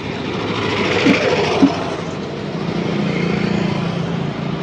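Street traffic with a motor vehicle engine, likely a motorbike, running close by and growing louder through the second half. Two short clicks about one and one and a half seconds in.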